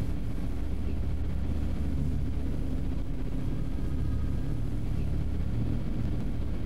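A steady low rumble, with no speech.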